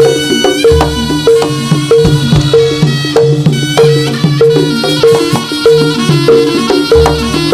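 Instrumental traditional Javanese ensemble music: pitched percussion plays a steady repeating pattern, one note recurring about twice a second, over drums.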